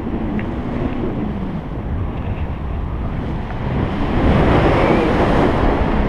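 Airflow rushing over the microphone during a tandem paraglider flight, a steady rumbling wind noise that grows louder about four seconds in.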